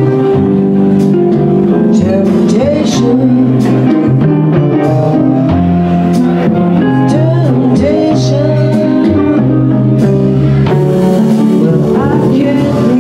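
Live band playing: an electric guitar over an upright bass and drums, with bending notes in the mid range.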